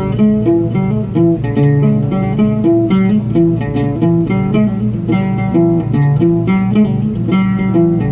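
Solo oud played, a melody of quickly plucked single notes in a minor pentatonic scale.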